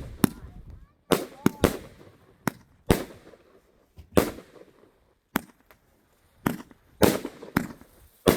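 A 138-shot 'All In' firework cake firing: over a dozen sharp bangs in irregular quick succession, each trailing off in a short decaying tail, with a brief lull a little past the middle.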